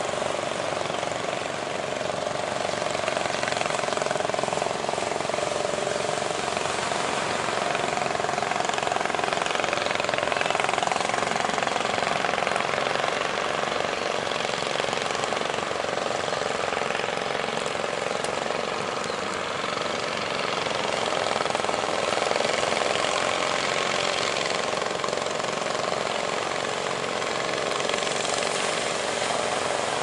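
Heavy surf breaking continuously, mixed with the steady rattling drone of fishing boats' engines running offshore.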